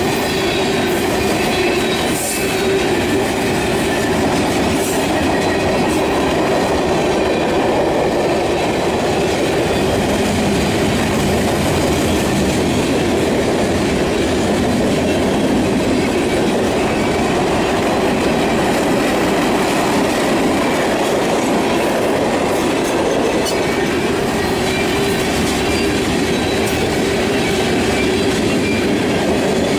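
Train cars rolling past, wheels clattering steadily over the rails, with a steady tone running through the sound.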